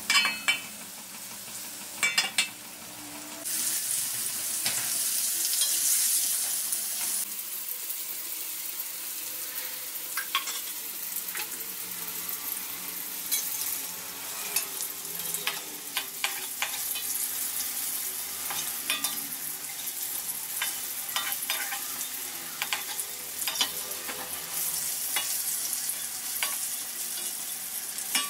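Flour-coated pieces frying in hot oil in an aluminium wok, sizzling, while a metal spatula clicks and scrapes against the wok as they are turned. The sizzle swells louder a few seconds in and again near the end.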